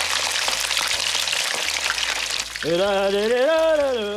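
Tempura-battered smelt deep-frying in hot vegetable oil in a wok: a steady, crackling sizzle. About two-thirds through, a loud, wavering melodic tone comes in over the frying.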